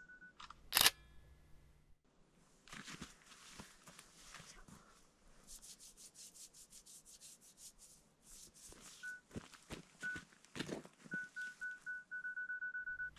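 A camera's self-timer beeping at one high pitch, the beeps coming faster until nearly continuous, then the shutter clicks; this happens once in the first second, and the timer starts beeping again from about nine seconds in, slowly at first, then quickening. Patches of rustling and shuffling fill the time in between.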